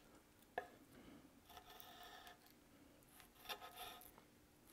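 Faint sounds of a chef's knife cutting boneless beef short ribs on a wooden cutting board: a light knock of the blade on the board about half a second in, then soft slicing strokes and the pieces being moved.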